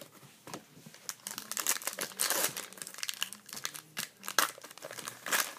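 Trading-card pack wrapper being torn open and crinkled by hand: a run of irregular crackling rustles, densest about two seconds in, with a few sharper snaps near the end.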